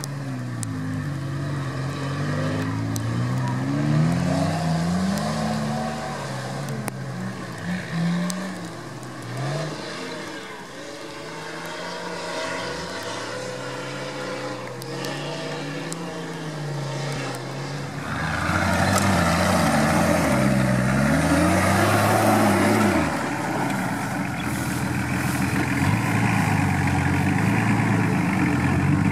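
Nissan Patrol GR's engine working off-road, its note rising and falling repeatedly as the throttle is worked. About eighteen seconds in it gets louder and harsher under heavier throttle.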